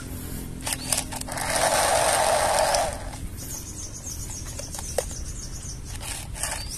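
A battery-powered toy triceratops's small motor and plastic gears whirring steadily for about a second and a half, after a few clicks. The buzz then stops.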